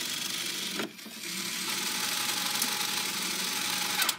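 Toy mini claw machine's small electric motor whirring as the claw moves, with a brief click and drop in level about a second in before the whirring resumes.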